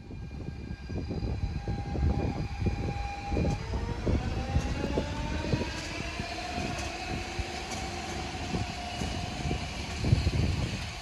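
DSB Litra SA S-train accelerating, its electric traction drive whining in tones that rise steadily in pitch over dull thumps from the wheels on the track.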